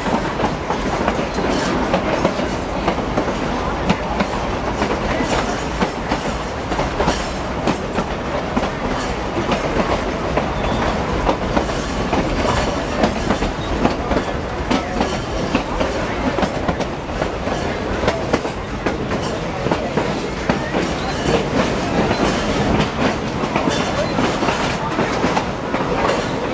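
Narrow-gauge railroad passenger car rolling along the track, heard from inside the open-sided car: a steady rumble of wheels on rail with frequent clicks and clacks.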